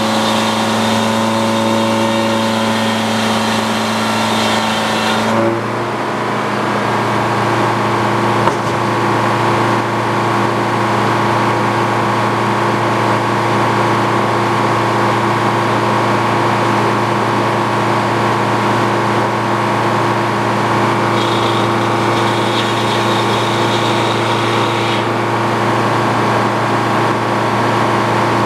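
Antique Frick circular sawmill running, a steady mechanical drone with several held tones. A higher whine and an extra tone drop away about five seconds in and come back for a few seconds near the end.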